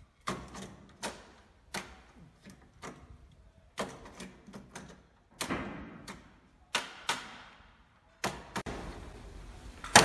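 A wooden block knocking on the edge of a wooden door, tapping a mortise lock into its mortise: a dozen or so sharp knocks, irregularly spaced about a second apart, a few coming in quick pairs, louder near the end.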